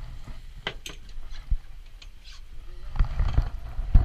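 Low rumble of wind on the microphone aboard a small boat, with scattered sharp knocks and clicks. The loudest cluster of knocks comes about three seconds in, and another comes at the very end.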